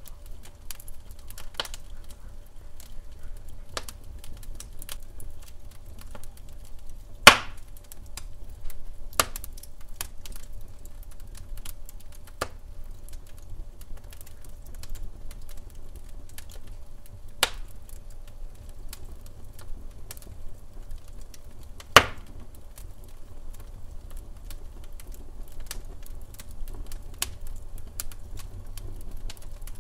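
Wood fire burning in a fireplace: irregular crackles and small pops over a low rumble of the flames, with two louder sharp pops, one about seven seconds in and one about twenty-two seconds in.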